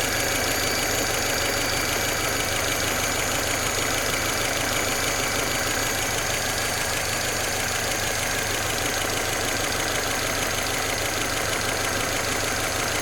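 Peugeot 407's 2.0-litre EW10J4 four-cylinder petrol engine idling steadily.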